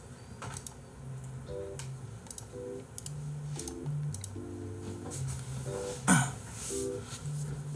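Soft background music playing a simple melody of held low notes, with scattered clicks of a computer keyboard or mouse. A short louder noise comes about six seconds in.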